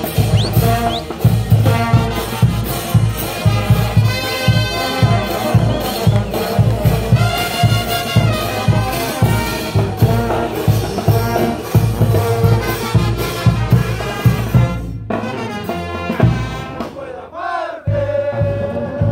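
Brass band playing dance music: sousaphones, trumpets and saxophones over a bass drum with a clashing cymbal and a snare, keeping a steady pounding beat. The music thins out about fifteen seconds in and briefly drops away before picking up again.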